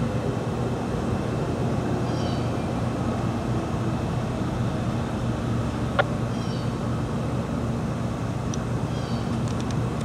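Steady street noise with a low traffic rumble and no siren tone. Faint high chirps come and go, and there is a single sharp click about six seconds in.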